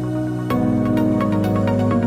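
Background music, a calm electronic piece with held chords over a steady, even beat; a new chord comes in with a sharp attack about half a second in.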